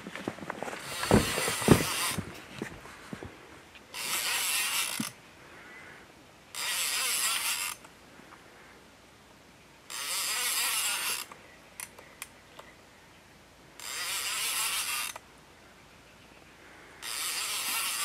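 Fishing reel being cranked in short bursts of winding, six in a row about three seconds apart, as a hooked fish is reeled in. A few low knocks of handling come in the first two seconds.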